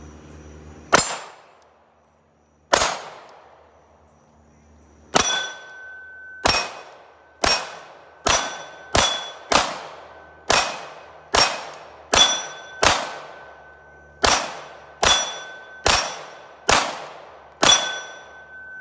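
A 9mm Glock pistol fires seventeen shots at a steel plate. The first two come slowly, and the rest follow in a quickening string of roughly one or more a second. From the third shot on, each hit makes the steel plate clang and ring.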